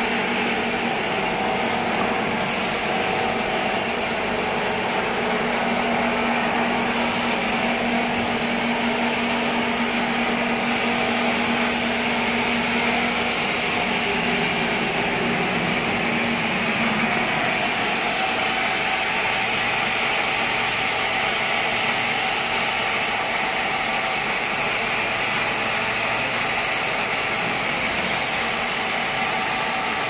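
Industrial air-bubble fruit and vegetable washing machine running: a steady mechanical hiss and hum from its bubbling tank and drives. A low hum in it drops away partway through.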